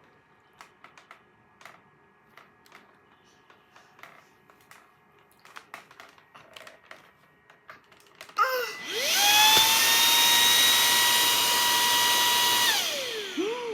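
Vacuum cleaner switched on about eight seconds in, its motor whine rising quickly to a steady high pitch with a hiss of rushing air, running about four seconds, then switched off and winding down. Before it, only faint scattered clicks.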